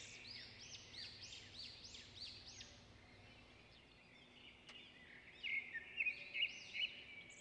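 Birds singing: a run of high, arched chirping notes repeated a couple of times a second, easing off after about three seconds and then returning louder with quicker chattering calls about five and a half seconds in.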